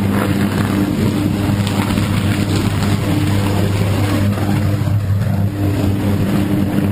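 Sustained high-voltage electrical arc in a substation: a loud, steady mains buzz with overtones and a rough hiss over it, the sound of an arc fault still burning.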